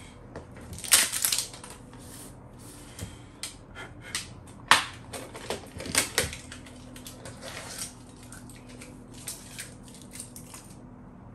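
Plastic scoop scraping and knocking inside tubs of supplement powder, with plastic tubs and lids being handled: a string of irregular scrapes and sharp clicks, loudest about a second in and again near five seconds in.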